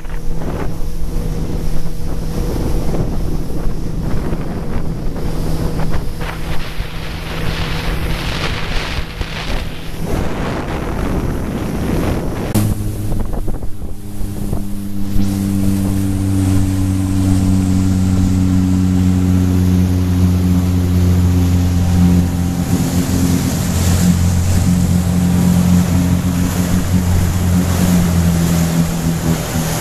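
Motorboat engine running at speed under a rush of wind and water. About twelve seconds in the rush drops away and the engine settles to a low, steady hum as the boat slows.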